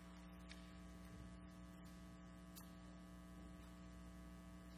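Near silence with a steady electrical mains hum, and a couple of faint ticks of paper being handled at a lectern.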